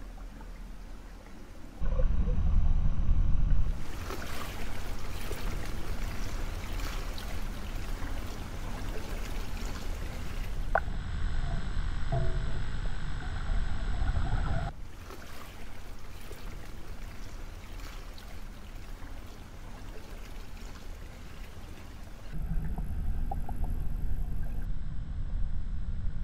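Pool water heard as if from under the surface: a low, muffled rumble and wash that jumps up about two seconds in, drops for a stretch in the middle, and rises again near the end.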